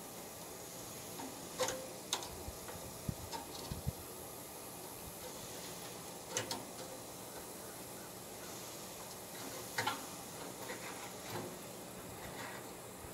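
Scattered metallic clicks and taps from a hand tool working on a wood cook stove's thermostat control lever as it is fitted, with a few duller low knocks a few seconds in, over a steady background hiss.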